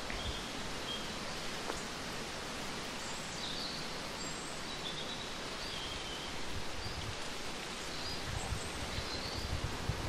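Steady outdoor woodland ambience, a soft even hiss with faint, short high-pitched chirps scattered throughout.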